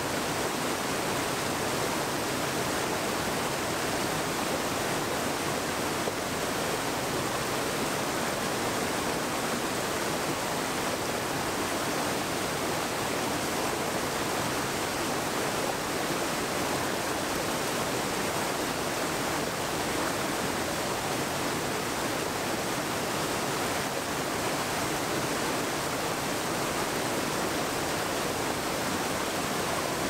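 Rushing stream water, a steady, even rush with no break.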